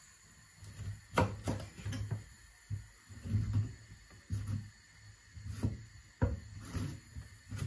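A series of irregular knocks and thuds, roughly one or two a second, from cut celeriac chips being handled during kitchen prep.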